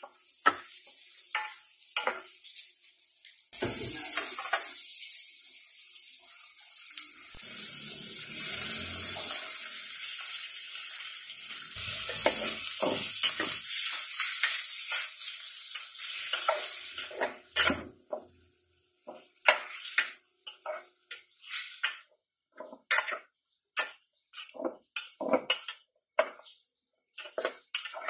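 Onions, garlic and ground meat frying in an aluminium pot, stirred with a metal spatula that scrapes and clinks against the pot. A loud steady sizzle sets in about three and a half seconds in and cuts off after about seventeen seconds, leaving separate spatula clinks.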